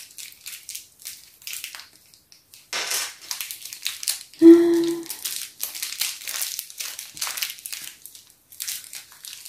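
Thin clear plastic wrapping crinkling and crackling as fingers work a tiny toy light fitting out of it. About halfway through there is one short pitched sound, the loudest moment.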